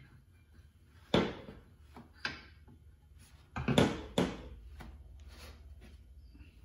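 Aluminum layout square being shifted and squared up on duct board: a handful of knocks and scrapes, one about a second in, another around two seconds, and a louder cluster near four seconds.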